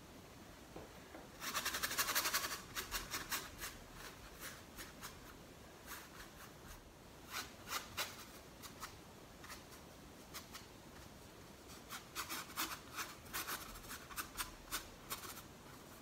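Paintbrush bristles dragging and scratching across a primed stretched canvas as acrylic paint is worked on in short strokes: one longer scrubbing stroke about a second and a half in, scattered single strokes after it, and a quick run of strokes near the end.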